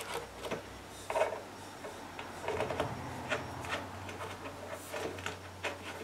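Faint rubbing and a few light clicks of hands handling and fitting parts at a scooter's exhaust silencer and rear mudguard.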